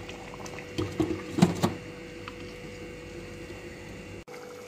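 A few metallic clinks about a second and a half in, as a lid is set on a stainless steel cooking pot, over a faint steady hum.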